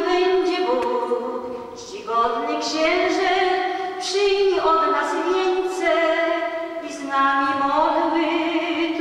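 A woman's voice singing unaccompanied into a microphone: slow, long-held notes, with brief breaks about two and seven seconds in.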